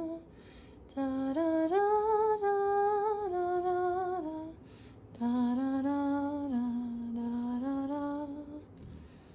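A woman humming a slow wordless tune in two phrases of long held notes that step up and down, the first phrase higher, the second lower.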